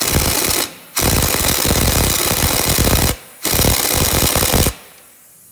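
Impact wrench hammering in three bursts, tightening the nut on a new front sway bar link.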